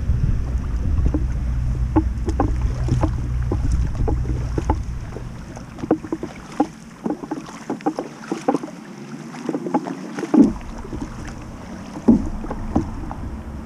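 Kayak paddle strokes: the blades dipping and splashing in calm water, with small knocks and drips between strokes and the loudest splashes about ten and twelve seconds in. A low wind rumble on the microphone fades out about five seconds in.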